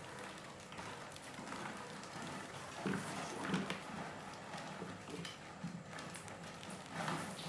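Many rats scrambling over a plastic bucket and wooden ramps: a busy patter of claws scratching and tapping, with louder clusters of knocks about three seconds in and near the end.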